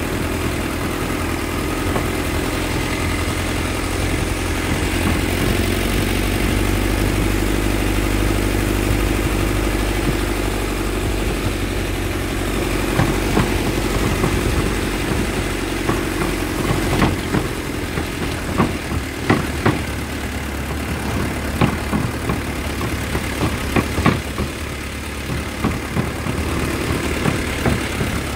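Truck engine running steadily at low speed on a rough dirt track. From about halfway through come frequent sharp knocks and rattles as the truck jolts over bumps and ruts.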